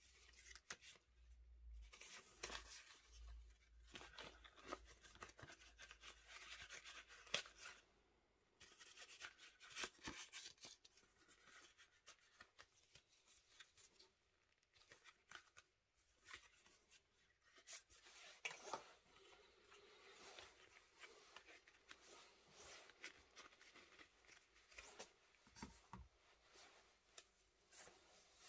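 Faint handling sounds of a paper banknote and a veg-tan leather wallet: the note crinkling and rustling as it is folded and slid into the wallet, with leather rubbing and small clicks, coming in bursts with short pauses.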